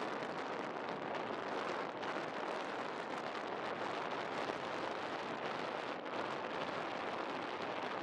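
Wind blowing over the microphone, a steady rushing hiss.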